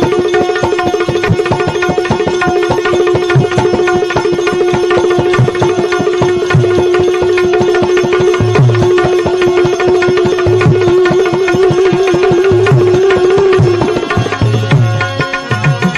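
Instrumental interlude of Indian devotional bhajan music: one long held melodic note, wavering in pitch shortly before it stops about 14 seconds in, over quick, steady hand-drum beats with deep bass strokes.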